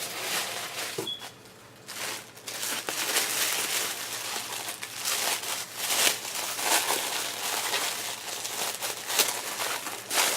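Packaging crinkling and rustling as craft supplies are handled and unwrapped, with a short lull about a second in, then steady crinkling.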